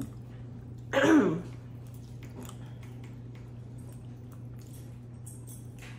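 A brief vocal sound from one person about a second in, its pitch rising and falling. Then a steady low hum of room tone with a few faint clicks.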